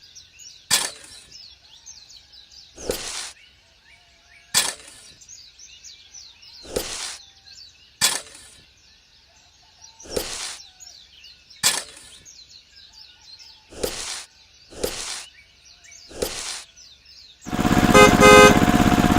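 Birds chirping in the background, with a short noisy stroke every one to two seconds, like scraping or knocking work. Near the end a small motor starts up loudly and runs steadily.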